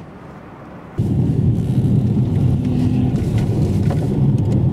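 Low, steady rumble of a car driving, heard from inside the cabin: engine and road noise. It starts abruptly about a second in, after a quieter stretch.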